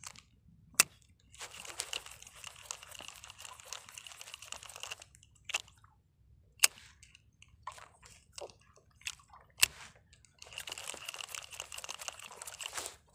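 Fugu Hikata 500 spinning reel being cranked in two spells of winding, a steady whirring with a high tone in it, with a few sharp clicks in the pauses between.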